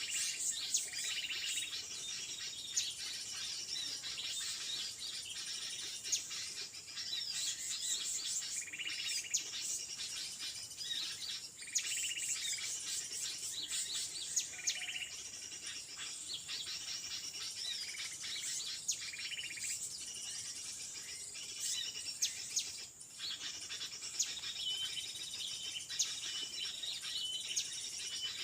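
Birds chirping and calling in many short, repeated notes, over a faint steady insect drone.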